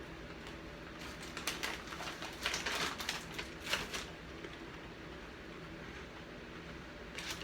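Someone chewing a mouthful of Chex Mix: a run of irregular crisp crunches for about three seconds, then only a faint steady hiss with one more crunch near the end.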